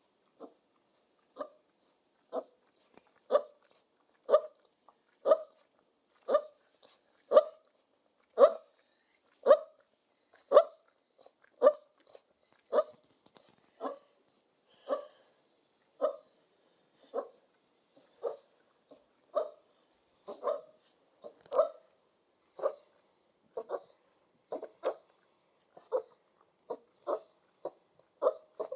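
Central Asian Shepherd puppy barking in short, separate calls about once a second, over and over.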